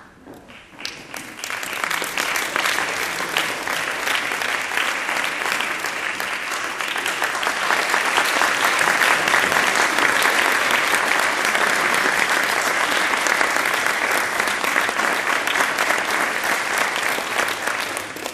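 Audience applauding, a dense clapping that starts about a second in, grows fuller about halfway through, and dies away at the end.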